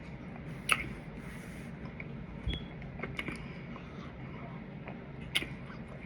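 A person chewing food close to the microphone, with scattered small mouth clicks and smacks, two sharper ones about a second in and near the end, over a steady low hum.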